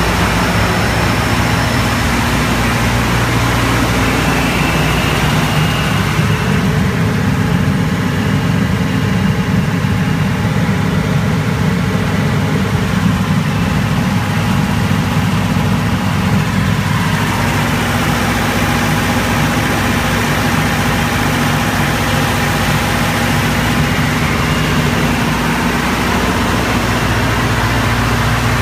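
Aircraft ground air-conditioning unit (AC 2030DE) running steadily: a constant low machine drone with a hiss of air and fans over it.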